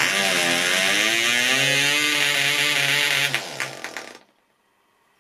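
PAW .55 model diesel engine running on its propeller just after being cleared of a deliberate flooding: the revs dip, then rise and hold steady, and after about three and a half seconds it dies away and stops.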